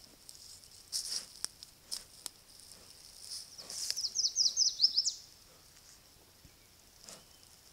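A moose's body brushing and knocking against a trail camera, giving a few sharp scrapes and knocks, followed by a quick run of about eight high, falling chirps near the middle.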